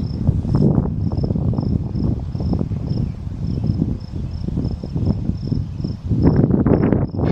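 A cricket chirping in a steady, evenly repeated rhythm, high-pitched and thin. Under it is a loud, uneven low rumble that swells about six seconds in.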